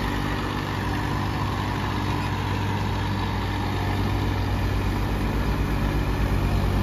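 Massey Ferguson 1035 DI tractor's three-cylinder diesel engine working under load as it pulls a loaded trailer up a dirt ramp: a steady low chugging hum that grows slightly louder toward the end.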